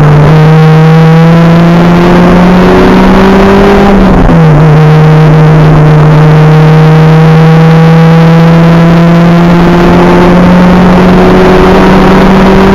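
Acura Integra race car's engine at full throttle, heard loud from inside the car, revs climbing steadily. About four seconds in the pitch drops sharply as it shifts up a gear, then climbs again.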